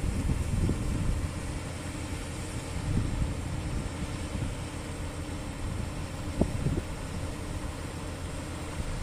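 JCB 540-170 telescopic handler's diesel engine running steadily at low revs, with a few soft knocks about six and a half seconds in.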